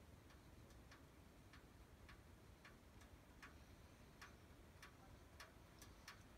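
Faint ticking, about two ticks a second and slightly uneven, over near silence.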